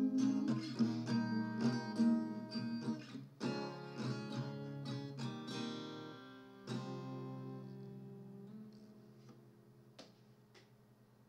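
Quart guitar, a small guitar tuned a fourth above standard, strummed and picked through the closing bars of a song. A final chord comes about two-thirds of the way through and rings out, fading away.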